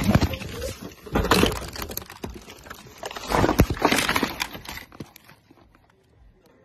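A car crash heard from inside the cabin: loud crunching and banging impacts in three bursts, dying away about five seconds in.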